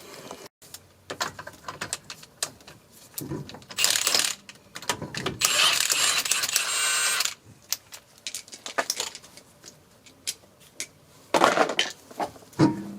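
Workshop tool and metal-part sounds: scattered metallic clinks and clatter. There is a short rushing burst about four seconds in, a louder one lasting about two seconds just after, and another loud noisy burst near the end.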